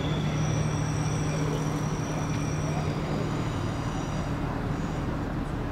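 A train's steady low hum, with thin high-pitched electric whines over it that fade out about four and a half seconds in.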